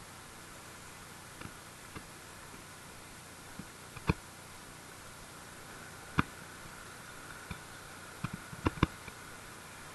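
Faint steady hiss broken by a few sharp, irregular clicks and taps. The loudest come about four and six seconds in, with a quick cluster of several near the end.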